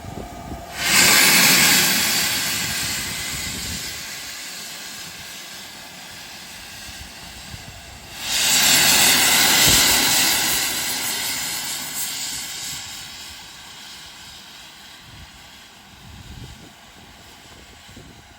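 Steam locomotive venting steam in two loud hisses: the first starts about a second in, the second about eight seconds in, and each one starts suddenly and fades away over several seconds.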